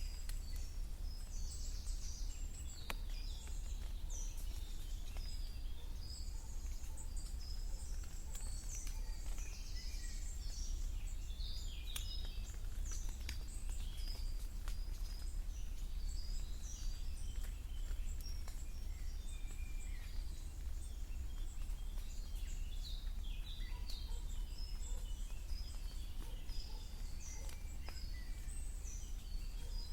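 Many woodland birds singing and calling, overlapping chirps and trills throughout, over a steady low rumble, with scattered faint ticks.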